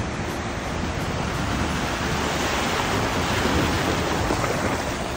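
Steady rush and splash of creek water pushed aside by a Toyota 4Runner fording a shallow creek.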